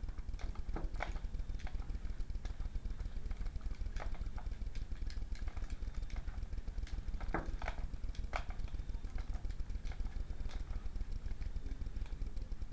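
Scattered faint clicks and taps of a Phillips screwdriver driving the screw into the plastic battery cover of a toy, over a steady low hum.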